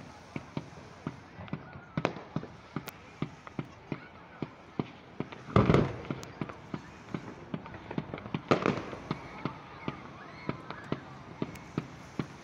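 Fireworks display: a quick, steady run of sharp pops, several a second, broken by louder bangs about two, five and a half, and eight and a half seconds in.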